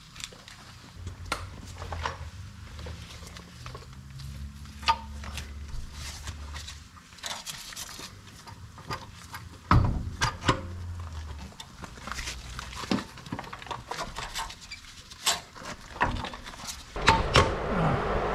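Scattered clicks and knocks of metal on metal as a new front CV axle is handled and worked into the hub and suspension, with a low hum at times and a louder rough scraping noise near the end.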